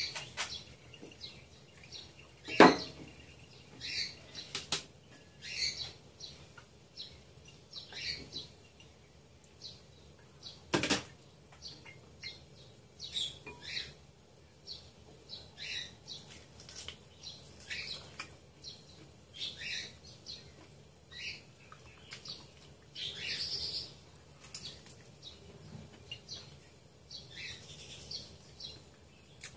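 Close-up mukbang eating sounds of a person sucking and chewing spicy chicken feet: many short, wet smacks and slurps in quick succession. A sharp click about three seconds in, and a second knock near eleven seconds.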